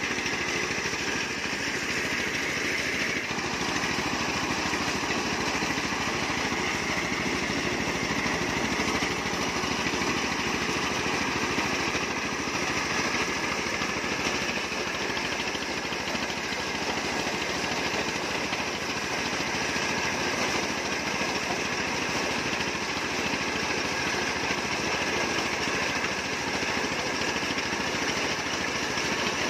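Engine-driven corn sheller running steadily while being fed cobs, its motor and threshing drum making one continuous mechanical din.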